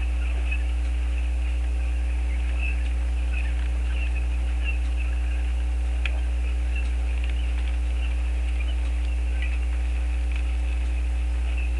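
A steady low hum that does not change, with faint, scattered high chirps and squeaks above it.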